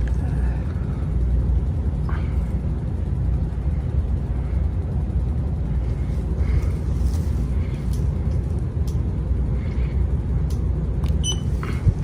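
52-inch TroposAir Cresswind ceiling fan running with a steady low rumble, with a few faint clicks and a brief high tone near the end.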